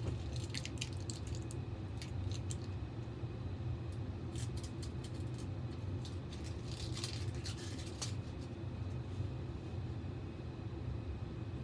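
Scattered light clicks, taps and rattles as a motherboard and its parts are handled and set into a computer case, over a steady low hum.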